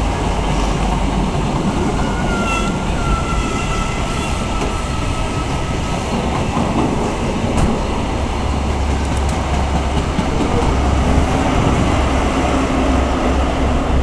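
First Great Western HST (InterCity 125) passing: the steady rumble and wheel noise of its Mark 3 coaches on the rails, with a deeper rumble building from about eight seconds in as the Class 43 power car comes by.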